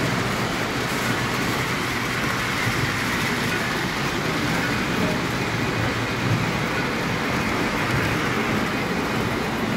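Model trains running on the layout's track, a steady rumble and whirr mixed with the hubbub of a busy shop.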